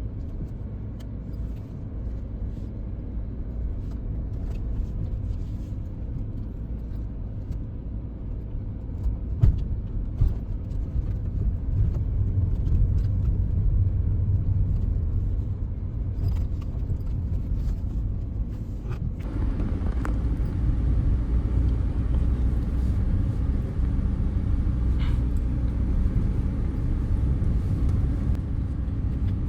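Audi Q5 quattro on the move: a steady low rumble of engine and tyres, with scattered knocks and clicks. The sound changes about 19 seconds in, getting a little louder and brighter.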